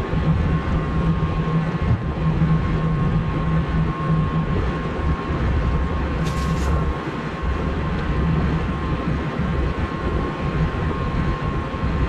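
Tractor-driven vertical feed mixer running, its auger churning a load of hay and feed, with a steady low rumble and a thin steady whine. A brief hiss about six seconds in.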